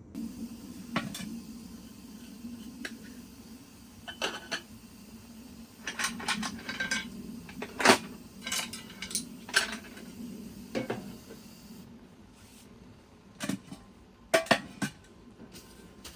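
Metal cookware and utensils clinking and knocking as they are handled, in irregular bursts that are loudest about eight seconds in and again near the end, over a low steady hum.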